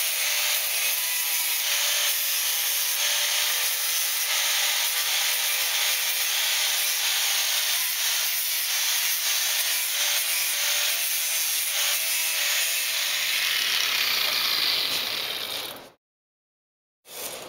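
Steady hissing, grating noise of a tool at work, with a faint low hum under it, cut off abruptly near the end.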